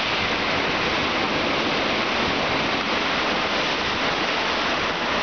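Hurricane-force wind blowing steadily through trees, heard as an even, unbroken rush of noise.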